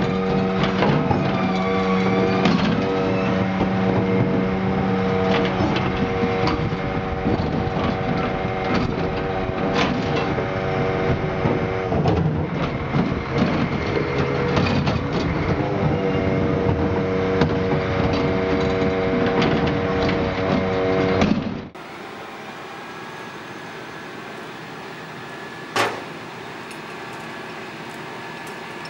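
Rear-loading refuse truck running with its Zöller hydraulic bin lifter working: a steady whine with repeated knocks and clatter as plastic wheelie bins are lifted and tipped into the hopper; the whine drops out briefly about halfway. About 22 s in it gives way to a quieter steady engine hum with one sharp click near the end.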